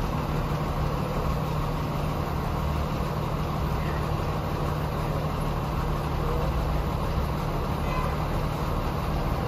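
Fire truck's diesel engine idling steadily, a constant low hum and rumble with no change in pace.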